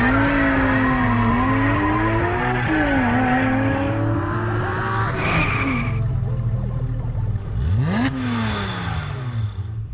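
Car sound effects: an engine revving up and down, a brief tire squeal about five seconds in, and a quick rise and fall in pitch about eight seconds in like a car passing by, fading away near the end.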